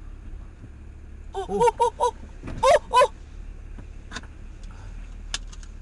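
A woman's short alarmed cries: four quick ones about a second and a half in, then two louder, higher-pitched ones around the three-second mark, over the steady low hum of the car.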